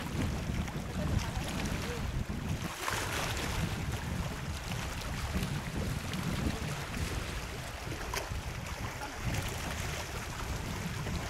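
Wind buffeting the microphone in a steady low rumble, over lake water lapping against a boat. There are two louder hissing washes of water, about three seconds in and again near the end.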